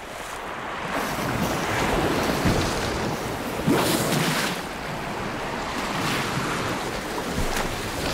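Sea water rushing and splashing as killer whales and a minke whale surge through shallow water, with a loud blow from the surfacing minke whale about four seconds in.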